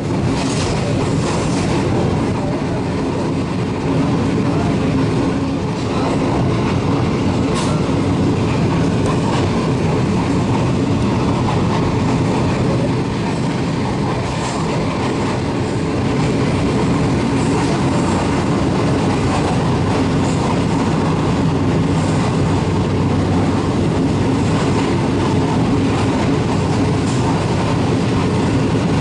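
Pakistan Railway passenger train running at speed, heard from inside the carriage: a steady rumble of the wheels on the track, with a faint click from the rails now and then.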